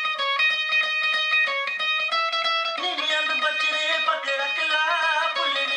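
Music played on a plucked string instrument. For about the first three seconds the melody moves in distinct held notes, then the notes slide and bend in pitch.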